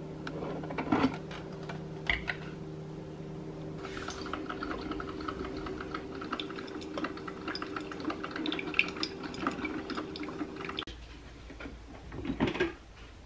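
Drip coffee maker brewing, hot water sputtering and crackling through the filter basket over a steady hum. Near the end the glass carafe is handled with a short knock.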